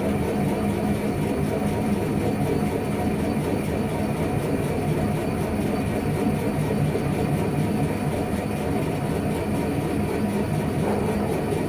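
Machine tool running steadily while boring out a Myford ML7 lathe tailstock: a constant mechanical running noise with a low hum and no breaks.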